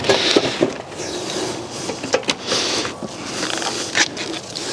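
Handling noise of the car's front panel and radiator pack being fitted: scattered sharp clicks and knocks of metal and plastic parts, clustered near the start, around two seconds in and at four seconds, with rustling and scraping between them.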